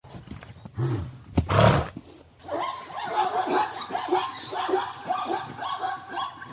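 Zebra calling: a loud, short noisy blast about a second and a half in, then a long run of rapid, pulsing, barking-braying calls.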